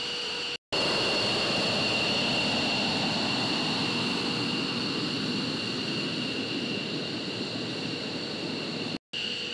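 F-15C Eagle's twin turbofan jet engines running at taxi power as the fighter rolls past: a steady high-pitched whine at two pitches over a broad rush. The sound drops out briefly twice, under a second in and near the end.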